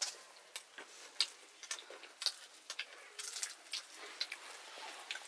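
Irregular faint clicks and ticks, a few a second, with no steady rhythm, over a soft hiss.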